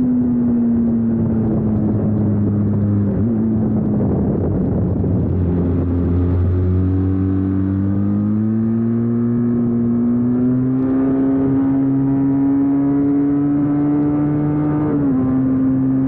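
Benelli TRK 502 X's parallel-twin engine running under way. Its steady note sags a little over the first few seconds, then climbs gradually as the bike picks up speed, with a sudden drop in pitch near the end.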